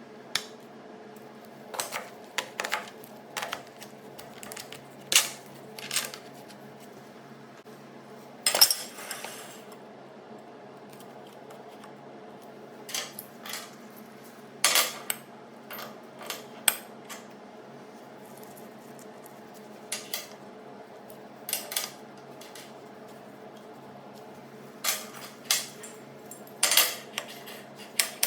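Scattered metallic clinks and knocks of metal parts and tools being handled and set down, irregular and a few seconds apart, over a steady low hum.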